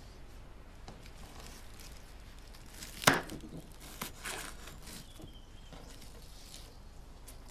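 A knife cutting through a hyacinth's stem at the bulb on a wooden bench: one sharp crunch about three seconds in, then a couple of softer cuts, with faint rustling of the leaves.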